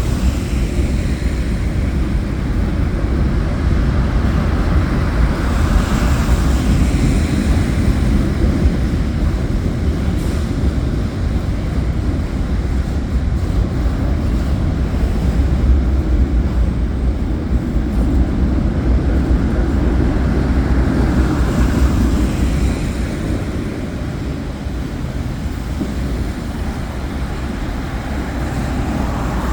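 Freight train rolling past, a steady low rumble of wheels on rail with two swells in the noise, easing slightly near the end.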